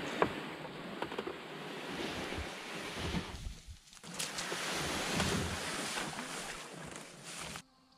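Rushing noise of wind on the microphone and moving water, with a few light knocks and a short lull about halfway; it breaks off abruptly near the end.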